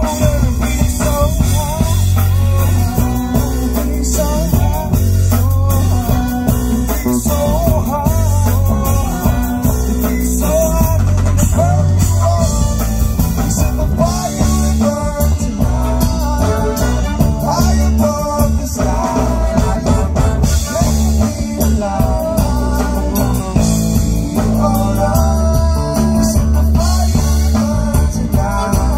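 Live reggae-rock band playing: electric guitars, bass and drums with a heavy, pulsing bass line and a wavering melody line over it.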